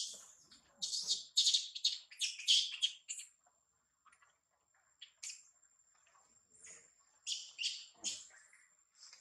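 Short bursts of high-pitched, squeaky chirping animal calls in two clusters: a quick run in the first three seconds and another about seven to eight seconds in. A faint, thin, steady high tone runs underneath.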